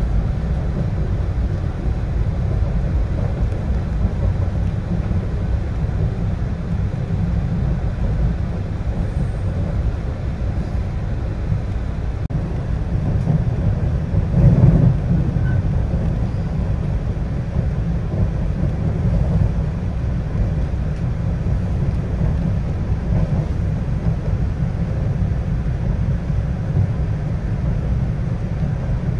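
Passenger train running along the tracks, heard from inside the car as a steady low rumble, with a brief louder swell about halfway through.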